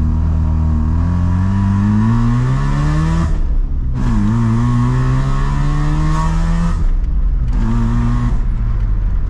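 Mazda RX-7's rotary engine pulling the car along, heard from the cabin: the revs climb for about three seconds, break off briefly at a gear change, climb again, then after another short break settle to steady running. The owner says the car idles and drives badly and has to be revved to keep going, and suspects the spark plugs.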